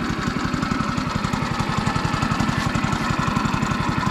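Small gasoline engine of a Woodland Mills portable bandsaw mill running steadily, with a rapid, even firing beat.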